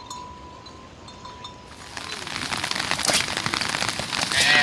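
Rain falling on a hard surface. It is faint for the first couple of seconds, then comes in as dense pattering with many small drop ticks from about two seconds in. A brief louder sound stands out near the end.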